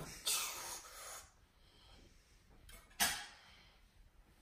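A child's breathy exhales: a longer hiss-like breath near the start and a short, sharp puff about three seconds in.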